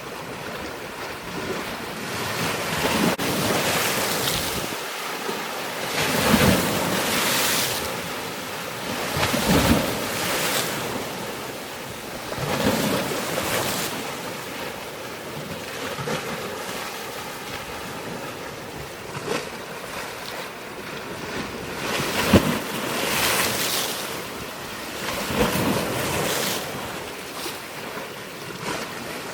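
Waves washing in, each surge rising and falling about every three seconds, with wind on the microphone.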